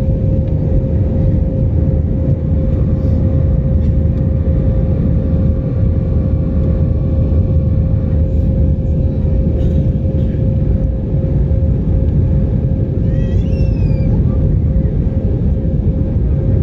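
Airbus A320 cabin noise in flight: the steady deep rumble of the engines and rushing air heard from a window seat, with a steady hum-tone running through it.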